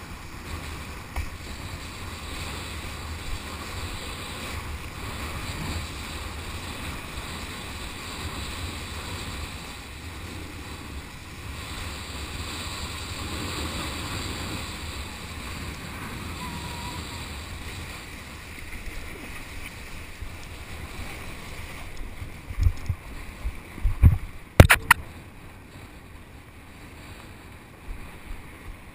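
Wind and water rushing steadily over a kiteboard-mounted action camera as the board skims through shallow water. About three-quarters through come a few loud thumps and one sharp knock.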